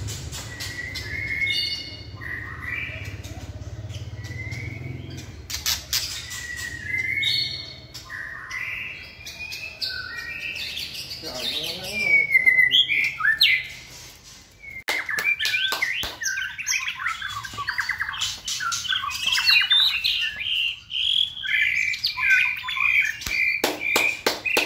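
White-rumped shama singing: a string of varied whistled phrases mixed with harsh clicking notes. It turns near the end to a fast run of repeated notes.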